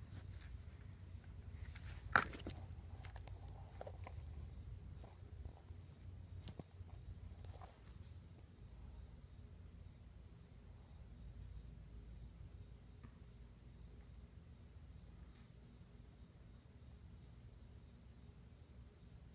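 Crickets trilling steadily at a high pitch, with a faint low rumble beneath. A sharp click about two seconds in is the loudest sound, followed by a few faint ticks.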